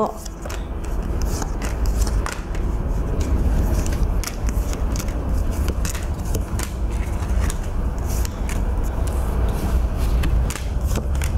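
A deck of divination cards being shuffled and handled by hand: a dense run of short card clicks and rustles over low handling rumble.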